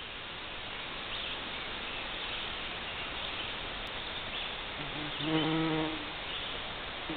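Bumblebee buzzing in flight, with a brief, louder wing hum about five seconds in, over a steady background hiss.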